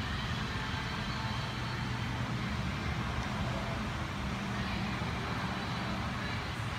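Steady low engine hum and rumble from vehicle noise in the background, unchanging throughout.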